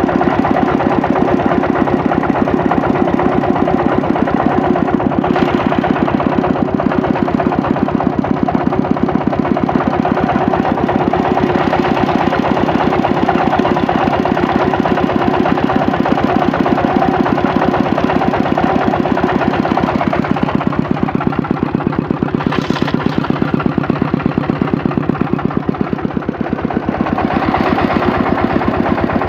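Dongfeng S195N single-cylinder diesel engine running steadily at working speed, a rapid even chugging, while it drives a generator that is putting out voltage.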